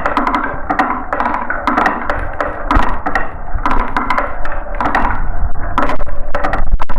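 Glass marbles rolling and clacking down a marble run track: a steady rolling rattle full of quick, sharp clicks as the marbles hit the track and each other.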